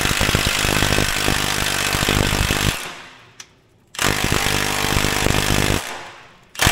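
Impact wrench hammering in long bursts on a seized, heated track roller bolt of a crawler dozer: one burst running until almost 3 seconds in, a short pause, a second burst of about two seconds, and a third starting at the very end.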